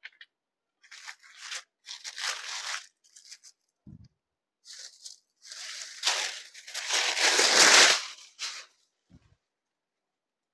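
Rustling and crinkling of a folded saree and its paper packing insert as it is opened out and spread across the counter. It comes in several bursts, the longest and loudest about six to eight seconds in, with a couple of soft knocks against the counter.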